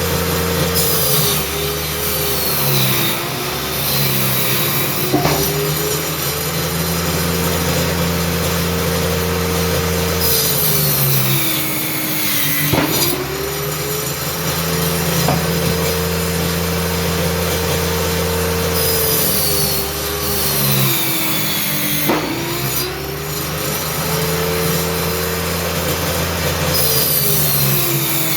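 Homemade circular saw running steadily and cutting speaker-box board several times. Each cut makes a long rasp, and the blade's pitch sags under load and then climbs back as the cut ends, about three times: near the middle, about two-thirds in, and at the end.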